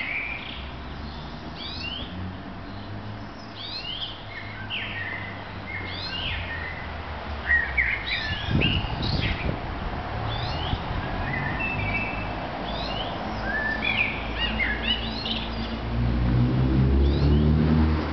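Several small songbirds chirping and singing in quick, repeated short phrases throughout. Under them a motor vehicle's engine hums low, getting louder near the end.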